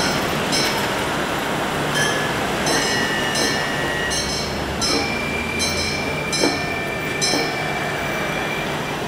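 Gion-bayashi festival music: a small hand gong struck in a steady beat, a little faster than once a second, with long held high flute notes. Street traffic noise runs underneath.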